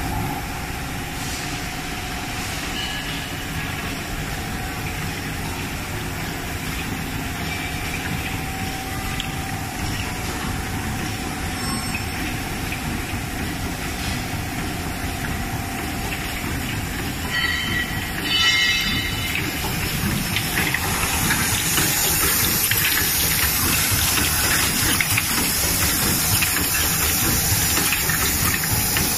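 Rotary cup filling machine and its cup elevator running: a steady mechanical clatter and rattle. A little past halfway comes a brief louder burst of high squeaks and clatter, and in the last third the hiss and rattle grow louder.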